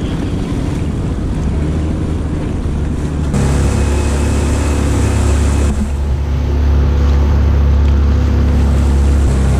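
Motorboat engine running steadily underway, a low even hum with water rushing and splashing past the hull. The sound jumps abruptly louder about three seconds in and shifts again near six seconds.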